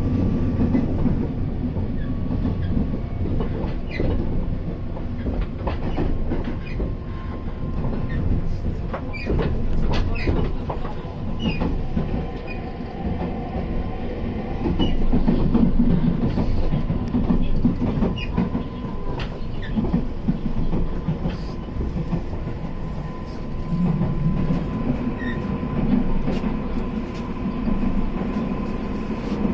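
Train running along the line: a continuous rumble with a steady faint hum and irregular clicks of the wheels over the rails.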